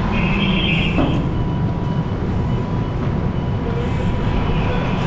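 Fire apparatus engine running steadily: a continuous low rumble with a faint steady whine above it.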